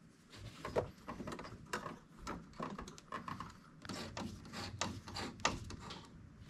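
Cold air intake parts being worked into place in a car's engine bay: irregular rubbing and scraping with many light clicks and knocks.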